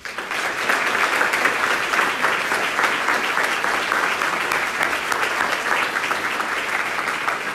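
Audience applauding: dense, steady clapping from many hands that starts abruptly.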